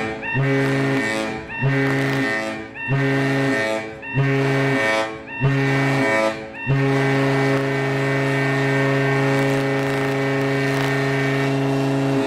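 Cruise ship horn sounding the general emergency signal for muster: five short blasts a little over a second apart, then one long blast of about five and a half seconds. The pattern matches the last of the seven short blasts and the one long blast of the muster alarm.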